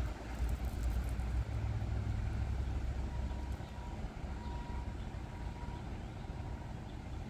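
Low rumble of a motor vehicle engine, strongest for the first three and a half seconds, then dropping away.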